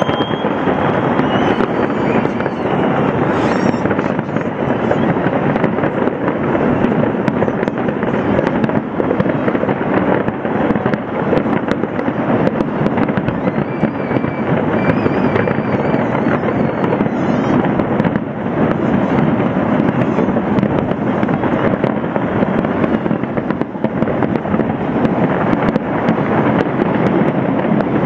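A large fireworks display going off in a dense, continuous barrage: many bangs and crackles overlapping with no pause. A few faint high wavering whistles sound above it now and then.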